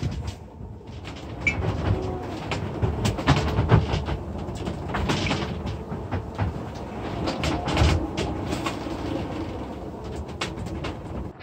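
Irregular knocks, clatters and rattles over a steady low rushing noise inside a wooden sailboat cabin, with no regular rhythm.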